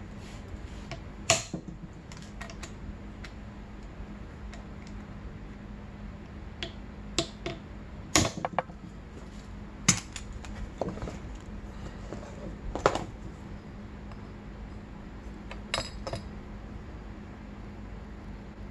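A handful of sharp metallic clinks and knocks, scattered and irregular, from a hand tool and parts on a Honda CR85R engine's aluminium crankcase and cylinder studs as a stud is worked on and the cylinder is fitted. A steady low hum runs underneath.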